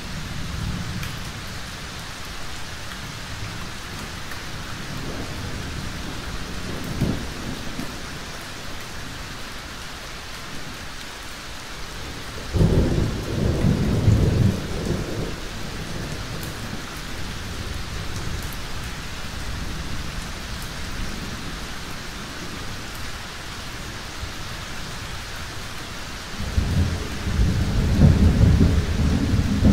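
Heavy thunderstorm: steady rain with rolls of thunder. A loud low rumble starts suddenly about halfway through and lasts a few seconds, and another builds near the end, with fainter rumbles early on.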